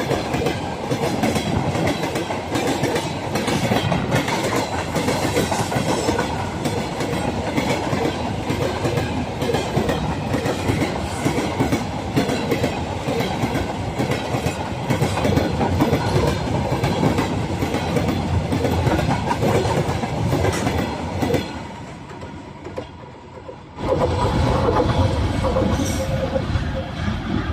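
Freight train wagons rolling past at speed, their steel wheels clattering rapidly over the rail joints. The noise drops away about 21 seconds in, comes back loud suddenly a few seconds later, then fades near the end.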